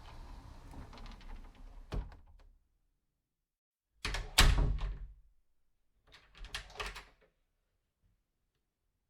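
A door being moved and shut: a scraping, clicking movement that ends in a knock about two seconds in, a loud bang about four seconds in, then a shorter rattling clatter around six to seven seconds.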